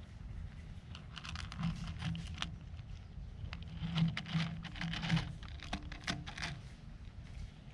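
A cat chewing and crunching its food: a run of irregular, quick clicks and crackles, busiest in the middle.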